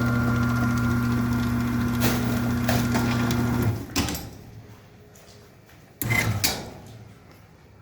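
Chamberlain garage door opener motor running steadily as the door is moved with the arrow buttons while setting the travel limit, then stopping about four seconds in. A short knock follows about two seconds later.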